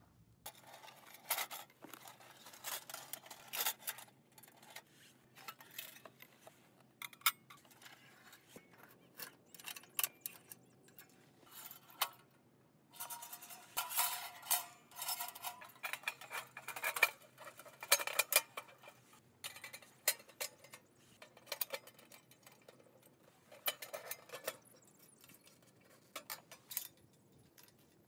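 Stainless-steel panels and parts of a prefabricated wood stove clinking, knocking and scraping as they are handled and fitted together, with latches clicking. The sound is a string of irregular light metallic knocks and clicks.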